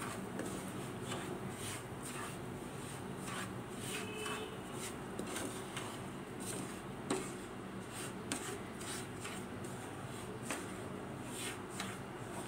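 A spatula scraping and stirring semolina as it roasts in ghee in a nonstick pan, in quick irregular strokes with one sharper knock about seven seconds in. A steady low hum runs underneath.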